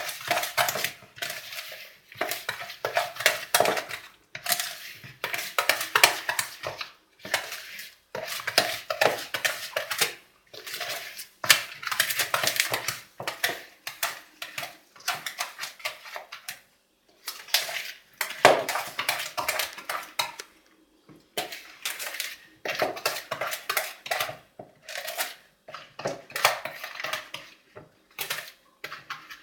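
Spoon stirring cake batter in a mixing bowl, clinking and scraping against the bowl in spells of a second or two with short pauses. The milk and egg are being worked into the flour, sugar, cocoa and melted butter.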